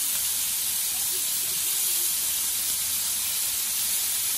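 Ground-beef smash burger patties sizzling steadily on a hot Blackstone flat-top griddle while being pressed flat.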